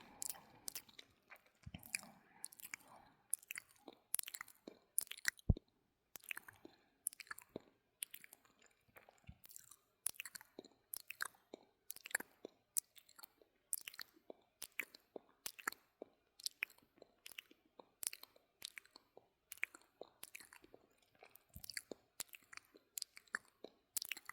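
Close-miked ASMR mouth sounds: a steady run of quick, wet mouth clicks and smacks, about three a second.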